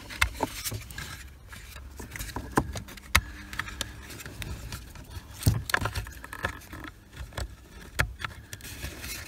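Plastic wiring-harness plugs being handled and pushed into a Fiat 500 airbag control unit: a few sharp clicks and knocks, with soft rustling and scraping between them.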